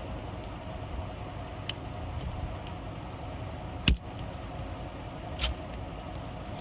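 Ratchet strap buckles being loosened: three sharp metal clicks, the loudest about four seconds in, over a steady engine hum.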